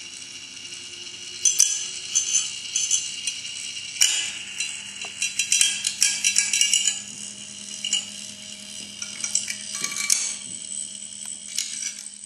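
Irregular clinking and rattling with many sharp clicks, like small hard objects jingling against each other, starting about one and a half seconds in, over a faint steady hum.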